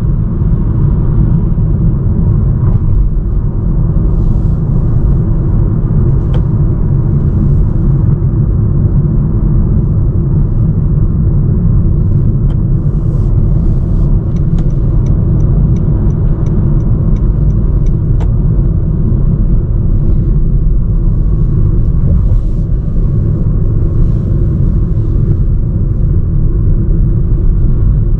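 First-generation Honda Vezel cruising at highway speed: a steady low rumble of road and running noise. A little past halfway, a run of about ten light, evenly spaced ticks sounds over it for about four seconds.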